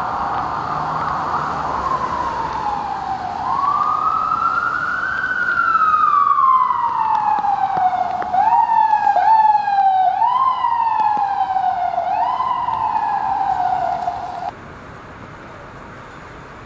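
Emergency vehicle siren wailing in slow, long falling and rising sweeps, then switching to shorter, quicker rises and falls, over steady street noise. It cuts off suddenly near the end.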